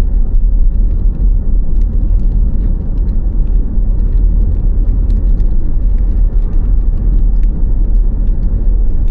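Steady low rumble of a car driving along, with road and engine noise heard from inside the car.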